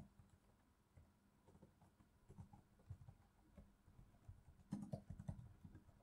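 Faint computer keyboard typing: irregular soft keystrokes, with a quicker run of them about five seconds in.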